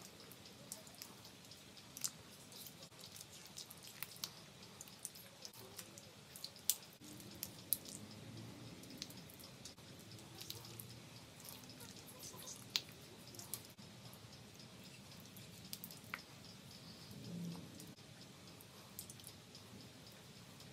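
Honeycomb being crushed and squeezed by hand over a mesh strainer: faint sticky crackling and squelching of wax comb as the honey is pressed out, with scattered sharp clicks at irregular times.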